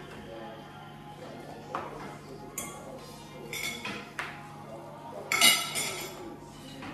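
Dishes and cutlery clinking as they are handled, a string of separate clinks with the loudest cluster about five seconds in.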